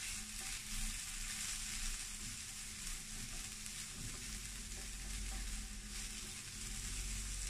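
Sliced bitter gourd sizzling in a nonstick frying pan on the pan's leftover heat after the burner has been turned off, while a silicone spatula stirs and scrapes it around. The sizzle is a steady hiss.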